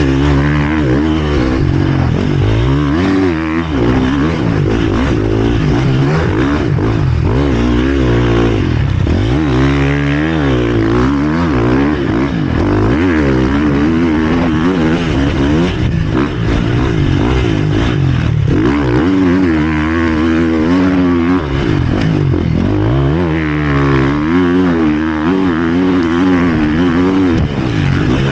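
Dirt bike engine revving hard and easing off again and again as it is ridden round a sandy motocross track, its pitch rising and falling with each burst of throttle and gear change, heard close up from the rider's position.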